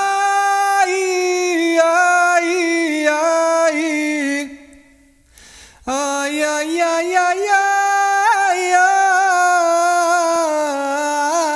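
Unaccompanied wordless singing: one voice holding long notes with small ornamental turns. There are two phrases, and the voice stops briefly about five seconds in before the second begins.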